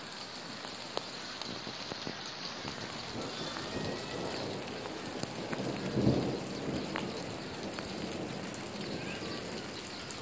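Rain falling, a steady hiss with scattered small drop ticks, and a brief low rumble about six seconds in.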